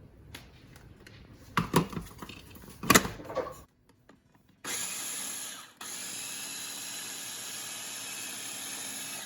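A few light clicks and knocks, then an electric blender runs: a burst of about a second, a short stop, and then steady running for over three seconds. It is blending homemade cream cheese curds as whey is added a little at a time to keep the cheese from turning runny.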